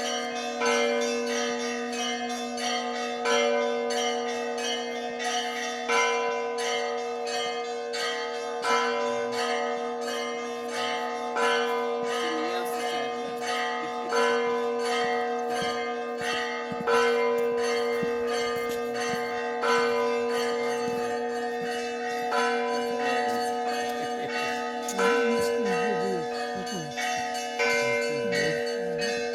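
Orthodox monastery church bells ringing a continuous peal: smaller bells struck in a quick, steady rhythm over the sustained ring of larger bells. It is the bell-ringing that calls the faithful to a church service.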